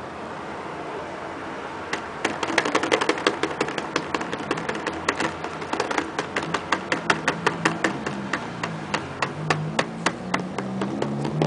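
Fingertips tapping rapidly on the surface of a white non-Newtonian fluid in a plastic tub, a quick run of sharp taps starting about two seconds in. The fluid firms up under each quick strike, so the taps land with a click instead of a splash.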